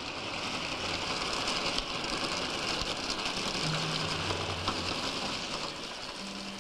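Stiff-bristled wooden scrubbing brush rubbed across the skin head of a large drum, giving a continuous hissing, rain-like rush. A few soft low tones come in about halfway through.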